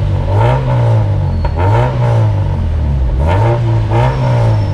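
Car engine revved in four quick blips, its pitch climbing and dropping back each time, through an aftermarket chambered muffler.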